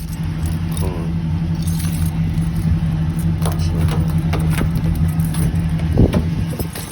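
Chevy Caprice engine idling with a steady low hum. Small clicks and rattles sound over it, and there is one thump about six seconds in.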